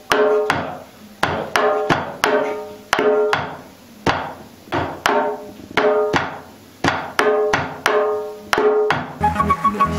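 Tibwa, a pair of wooden sticks, beating a repeating rhythm on the wooden body of a hooped barrel drum, about two to three strokes a second. Each stroke is a sharp clack with a short ring that dies away. Fuller music with several instruments comes in near the end.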